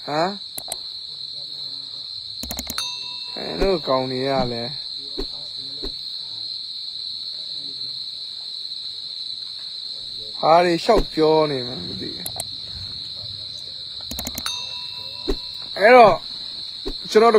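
A steady, high-pitched trill of night insects, like crickets, with a man's voice breaking in briefly a few times.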